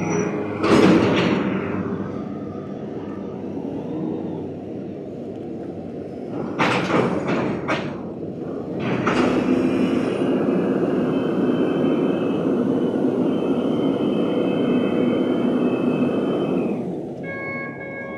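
Container-handling machine running under load as it lifts a steel shipping container off a stack. There are loud metal clanks and bangs about a second in, a quick run of them around seven seconds and another just after nine seconds, as the container comes free. After that it runs steadily and louder with a faint whine while the container is hoisted, easing off near the end.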